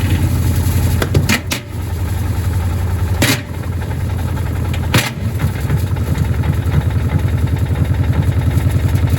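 Gorenje washing machine running with heavy bricks in its drum: a loud low rhythmic pulsing, broken by sharp knocks about a second in, at about three seconds and at about five seconds.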